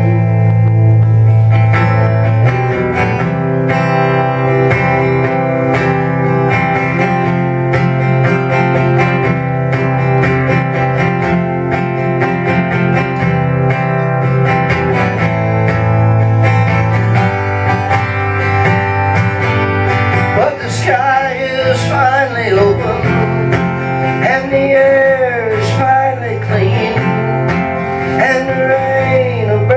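Live country band playing an instrumental break, with acoustic guitar under a sustained lead melody. In the second half the lead line bends and slides in pitch.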